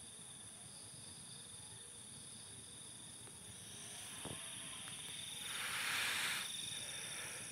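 Crickets and other night insects chirring steadily in high thin tones. A soft hiss swells and fades about six seconds in, with a faint click a little before it.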